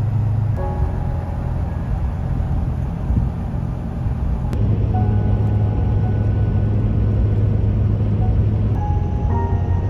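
Steady low engine and road drone inside a moving pickup truck's cab, growing louder about halfway through.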